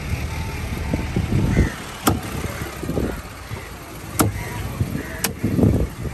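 Three sharp knocks, each cutting short, about a second or two apart, over a steady low rumble of outdoor background noise with voices.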